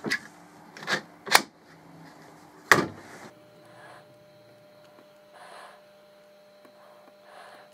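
Ratchet bar clamp being handled, giving three sharp clicks and knocks over the first three seconds, the last the loudest, as the clamp head meets the bolt-and-nut stop at the end of its steel bar. After that, only a faint steady hum.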